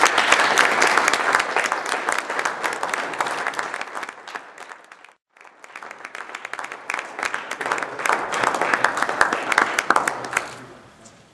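Audience applauding. The clapping breaks off abruptly for an instant about five seconds in, resumes, and dies away near the end.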